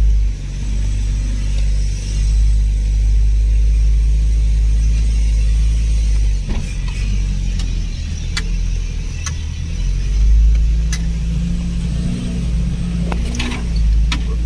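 An off-road 4x4 running on a rough dirt track, heard from inside the cab as a heavy, steady low rumble. A few sharp knocks and rattles come in the second half.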